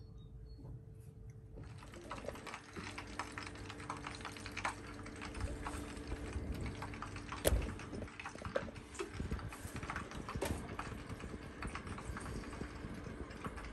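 Oven being opened with an oven mitt: a run of small clicks and knocks from the door and wire rack, over a steady hum that stops about seven seconds in, just before one sharp knock.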